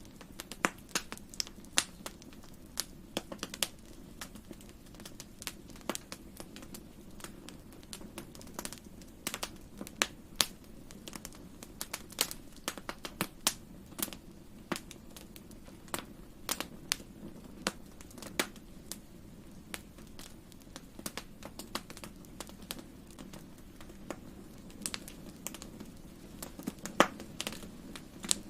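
Wood fire crackling in a fireplace: frequent irregular pops and snaps, a few louder ones, over a soft steady rumble of the burning logs.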